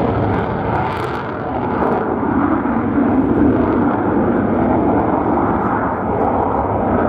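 Jet roar of an F-35A Lightning II's single Pratt & Whitney F135 turbofan at takeoff power as the fighter lifts off and climbs away. It is a loud, steady roar with a deep rumble and swells slightly about three seconds in.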